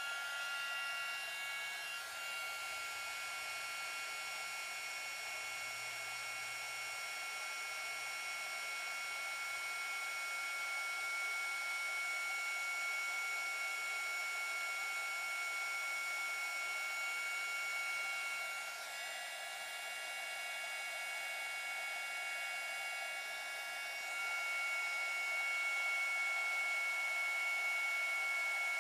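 Small handheld heat gun running steadily, a fan blowing with a high whine, heating low-temperature solder on silver-plated rhinestone chain. It dips briefly about two-thirds of the way through and runs a little louder near the end.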